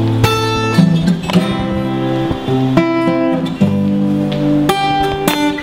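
Acoustic guitar strummed in chords, with sharp strokes about once or twice a second and the chords changing as it goes, playing on between sung lines.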